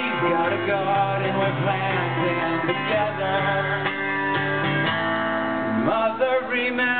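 Live folk music from an outdoor festival stage: acoustic guitar playing steadily, with some singing.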